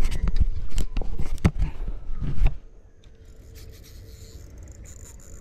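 Rubbing and scraping handling noise with several knocks, from hands working a fishing rod and line close to the microphone. It stops suddenly about halfway through, leaving only a quiet low background.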